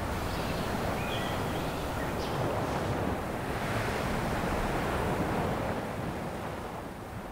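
A steady rushing noise, swelling towards the middle and easing off near the end, with a few faint short high chirps in the first two seconds.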